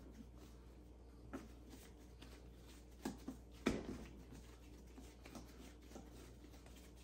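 Soft thumps and pats of hands kneading a proofed pizza dough ball on a floured silicone mat, pressing the air out of it. A few short knocks, the loudest about three and a half seconds in.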